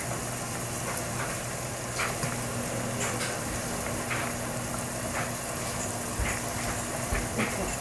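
Mushrooms simmering in a thick soy-sauce-and-sugar sauce in a small stainless saucepan on a gas burner: a steady sizzle with scattered small pops. A low steady hum runs underneath.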